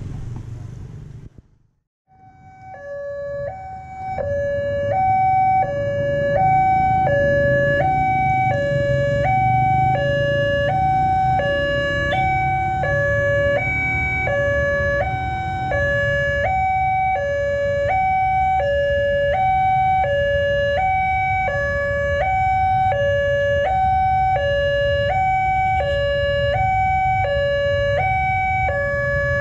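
Railway level-crossing warning siren from a horn loudspeaker: an electronic two-tone alarm switching between a high and a low note about once a second, warning that a train is approaching. It cuts in about two seconds in, over a low rumble.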